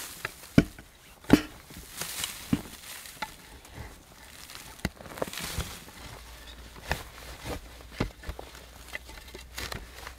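A hand tool chopping and scraping into a packed earth wall with roots in it: irregular sharp knocks among scratchy rustling, with loose soil falling away.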